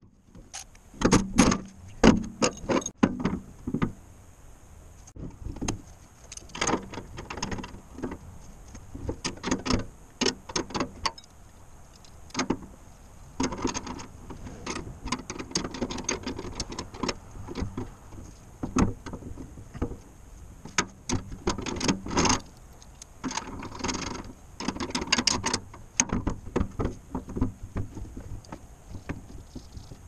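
Hands-on work on a metal cab frame: irregular knocks, clunks and clatter as parts and a panel are handled and set against the frame, with rustling in between. The loudest knocks fall in the first few seconds.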